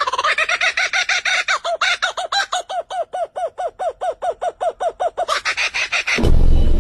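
A bird calling in a rapid, even series of short pitched notes, about six a second, then one harsher, noisier call. Music starts near the end.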